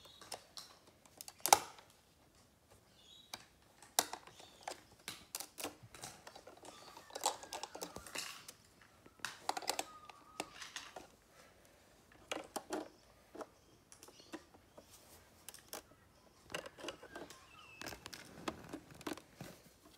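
Plastic LEGO bricks and plates clicking and clattering as hands work on a LEGO boat model, lifting and fitting its roof plate: irregular short sharp clicks, the loudest about one and a half seconds in.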